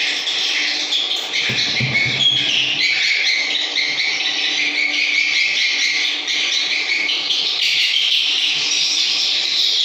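Dense, continuous twittering of swiftlet calls, many overlapping high chirps. A short low thump comes about a second and a half in.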